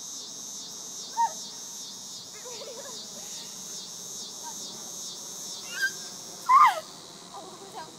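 Cicadas droning in a steady pulsing chorus, easing off near the end. A few short sliding cries cut across it, the loudest about two-thirds of the way through.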